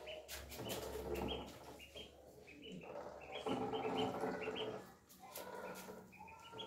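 Ducklings peeping: quick runs of short, high notes, several birds at once, with light tapping and scuffling as they move about in a plastic tub.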